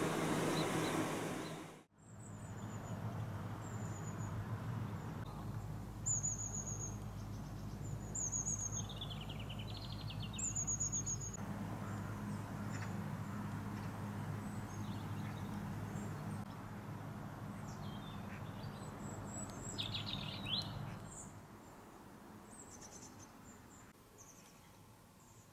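Small birds chirping and warbling outdoors: short high chirps and a few warbled phrases, over a steady low hum. A loud steady rushing noise cuts off abruptly about two seconds in, and the hum drops away near the end, leaving a quieter background.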